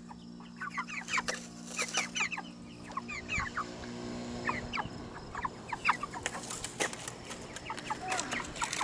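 White chickens in a pen calling: many short, high clucks, several sliding down in pitch, scattered throughout.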